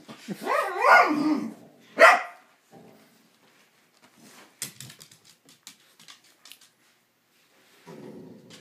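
Basset hounds vocalising at each other: a wavering, up-and-down whine-like grumble for the first second and a half, then one sharp, loud bark about two seconds in. Faint scuffling clicks follow, and a low grumble comes near the end.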